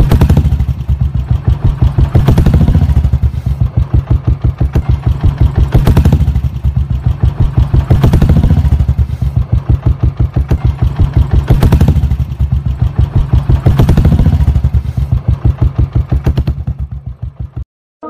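Royal Enfield single-cylinder motorcycle engine running with its steady low thump as the bike is ridden, the level swelling every two to three seconds. It fades and stops shortly before the end.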